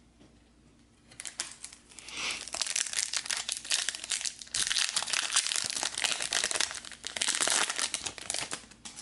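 Foil wrapper of a Garbage Pail Kids Chrome trading-card pack being torn open and crinkled by hand. Dense crackling starts about a second in and runs on, with a short lull about midway.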